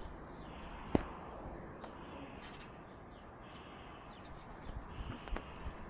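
Faint bird chirps over a steady background hiss, with one sharp click about a second in.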